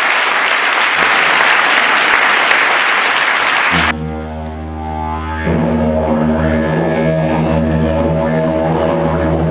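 Applause that cuts off abruptly about four seconds in, followed by a didgeridoo starting a low, steady drone with strong overtones, which grows fuller and louder about a second and a half later.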